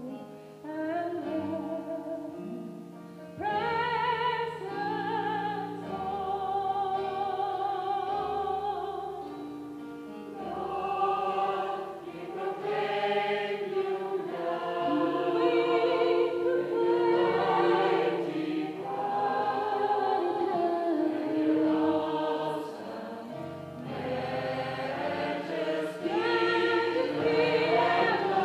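Gospel choir singing with accompaniment, sustained chords with vibrato and changing harmonies, echoing in a church.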